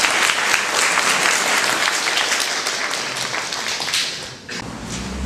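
Audience applauding, many hands clapping together; the applause dies away about four seconds in, leaving a few scattered claps.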